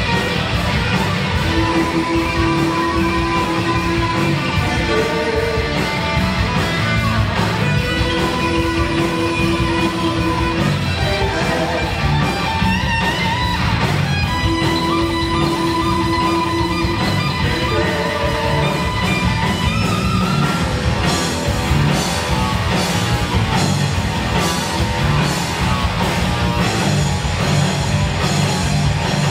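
Three-piece heavy metal band playing live, with electric guitar, bass and drums in an instrumental passage. The lead guitar holds long notes in a repeating phrase over a driving drum beat.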